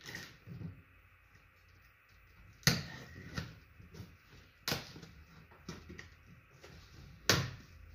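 Handling of a cardboard shipping box: three sharp clicks or knocks about two seconds apart, with fainter ticks and rustling between.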